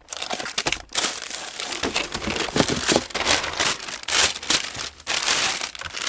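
Plastic packaging bags crinkling and rustling continuously as wrapped parts are handled and unwrapped.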